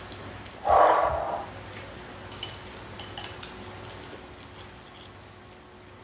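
Tableware at a meal: a few light clinks of utensils against bowls and dishes, with a short louder scraping noise about a second in.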